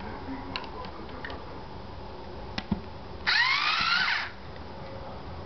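Battery-operated handheld decapper motor spinning for about a second as it unscrews a cap off a sample tube, a whine that rises in pitch as it runs. A few light clicks come before it.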